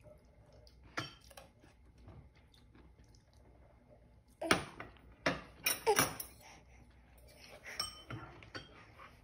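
Cutlery clinking and knocking against dishes in a handful of sharp, separate strikes, most of them bunched together about halfway through.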